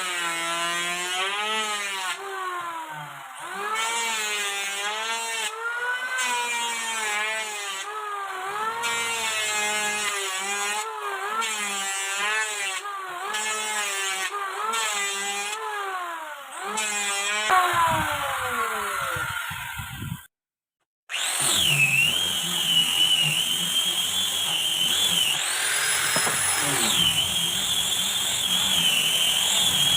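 Homemade scroll saw cutting wood, its motor pitch repeatedly dipping and recovering as the blade is loaded. Near the middle the motor winds down and stops. After a brief silence a power tool runs with a high, steady whine that briefly climbs higher.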